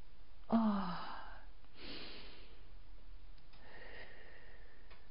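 A woman breathing audibly while holding a deep yoga stretch: a short voiced sigh on the out-breath, falling in pitch, about half a second in, then two softer, breathy breaths.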